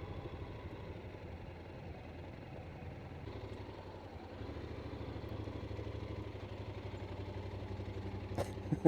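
Motorcycle engine running steadily, a little louder from about three seconds in. A couple of sharp knocks near the end.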